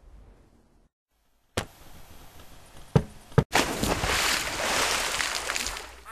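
Cartoon sound effects: the tail of a blast dies away, then after a short gap a sudden hit and a low rustling noise, two sharp clicks, and a loud rushing noise that fades near the end.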